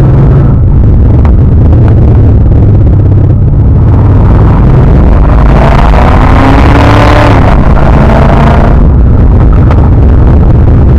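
Car engine running under load, with a rising pitch from about halfway through as it accelerates hard, easing off again about three seconds later.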